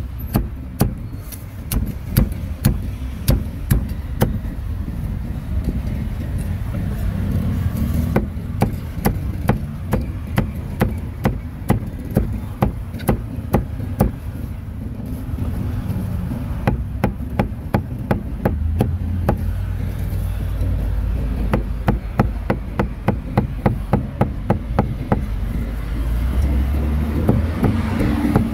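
A cleaver chopping grilled meat on a wooden chopping block: sharp strikes, often in quick runs of about two to three a second, over a steady low rumble.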